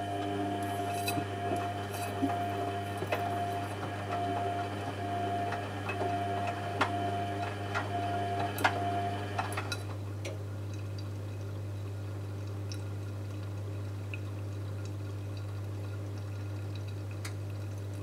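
Zanussi Jet System front-loading washing machine during its wash: water sloshing and splashing in the turning drum with small clicks, over a steady whine that stops about halfway through, leaving a low steady hum.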